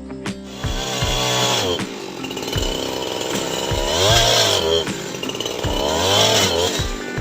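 Chainsaw engine running and revving up and back down three times, about a second in, about four seconds in and about six seconds in.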